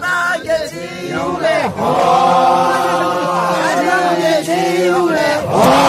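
A group of voices chanting together in long held notes, several voices overlapping at different pitches, with a short break between phrases.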